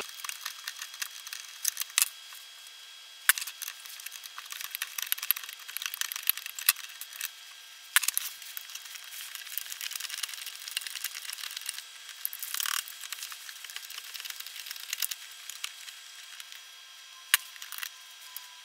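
Scattered small metal clicks and taps of a hex key, wrench and loosened terminal bolts being handled on a lithium battery pack, with a few sharper knocks, the clearest about 12 s in. It sounds thin, with no low end.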